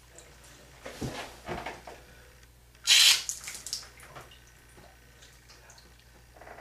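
Water splashing and dripping in a few short bursts, the loudest about three seconds in.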